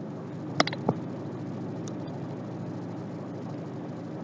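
Steady engine and road noise heard inside a moving car, with two brief clicks a little under a second in.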